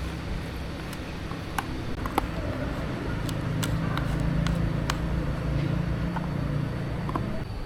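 A steady low mechanical hum, like a motor running, with a handful of short, sharp clicks or taps scattered over it.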